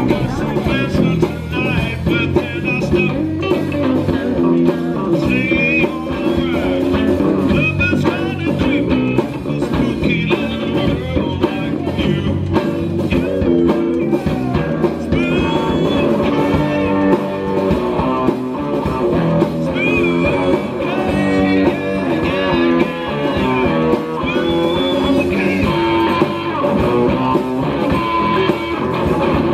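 Background music: a blues-rock song with guitar, and a voice or lead guitar line over it.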